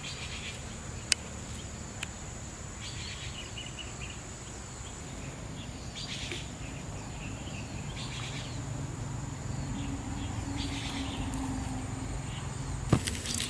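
Pondside ambience: a steady high-pitched insect drone with short bursts of bird chirping every few seconds, and a sharp click about a second in and another near the end.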